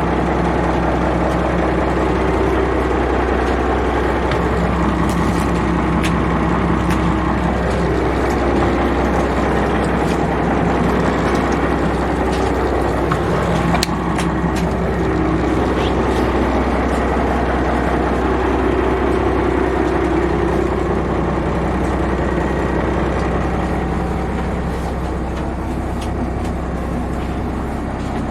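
Boat engine running steadily with a deep hum, its pitch wavering slightly partway through.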